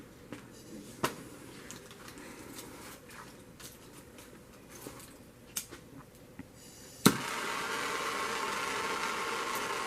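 A few light clicks of handling, then about seven seconds in a handheld gas soldering torch lights with a sharp pop and burns with a steady hiss, heating a copper fitting for soldering.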